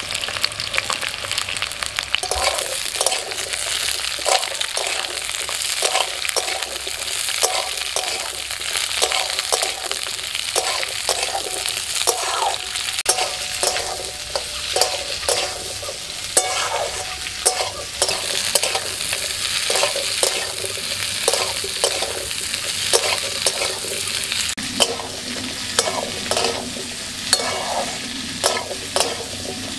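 Halved green hog plums frying in hot mustard oil in a metal wok, sizzling steadily, while a metal spatula scrapes and turns them against the pan in repeated strokes that pick up about two seconds in.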